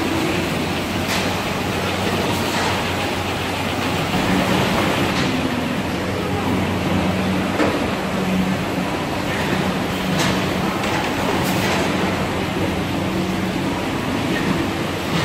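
GREEFA GeoSort tomato grading line running: a steady mechanical rumble and hum from its roller conveyors and belts, with a short click now and then.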